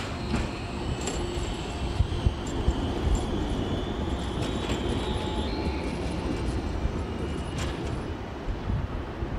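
RET Alstom Citadis low-floor tram running past on grass-covered track and pulling away: a steady rumble of wheels on rail with a thin high whine that slowly falls in pitch over the first five seconds, and a few sharp clicks.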